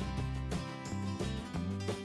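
Background music: a light acoustic guitar tune with steady strummed notes.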